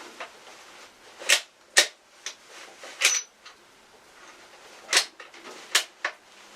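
A handful of sharp clicks at irregular intervals, about six in all, over faint background hiss.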